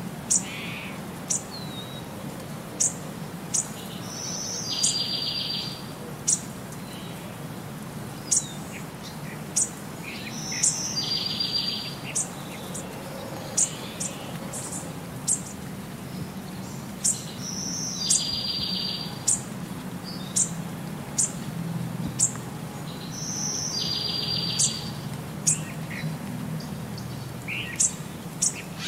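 Birdsong from a looped nature-sound track: sharp high chirps and a short buzzy trill, the same phrase repeating about every six and a half seconds over a steady low hum.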